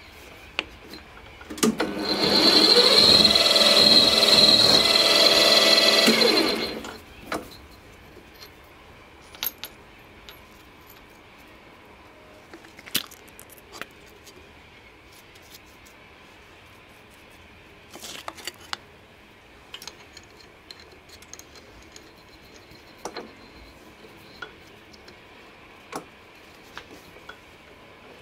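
A bench drilling machine's spindle motor runs for about five seconds with a countersink bit in the chuck, its whine shifting in pitch as it spins up, then stops. Afterwards come scattered light metallic clicks of small tools being handled.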